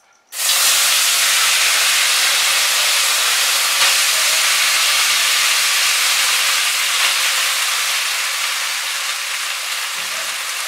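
Boiled egg noodles dropped into hot oil in a kadai: a loud sizzle starts suddenly about half a second in and keeps going steadily, easing slightly as they fry.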